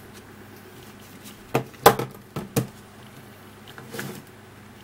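Smartphones being handled and set down on a wooden desk: several sharp knocks and taps, the loudest about two seconds in, and softer handling noise near the end.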